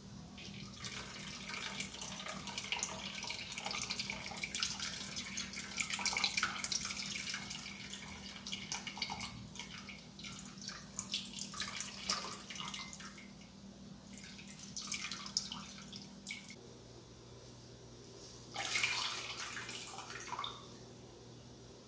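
Coconut milk trickling and dripping into a stainless steel bowl as the grated coconut is wrung out in a cloth, in uneven spurts, with a louder splashing gush from a hard squeeze near the end. A faint steady hum runs underneath.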